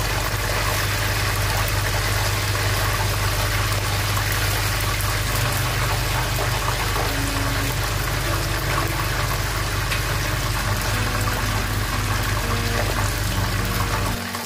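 Chicken pieces and whole garlic cloves sizzling steadily in hot frying oil, being turned with metal tongs, over a steady low hum. Faint background music comes in from about midway.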